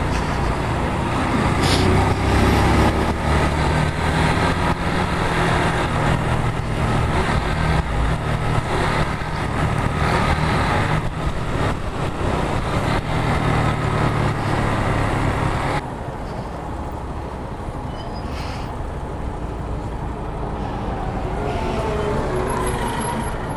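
A small motorcycle's engine running under way in traffic, mixed with wind and road noise on the microphone. About two-thirds of the way through, the sound drops suddenly to a quieter, lighter engine note.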